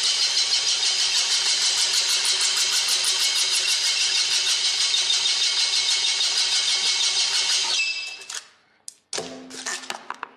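Scroll saw (fretsaw machine) with its blade rapidly pumping up and down, cutting the fretwork pattern of an accordion grille. It is loud and steady, then stops about eight seconds in. A few light clicks and knocks follow as the piece is handled.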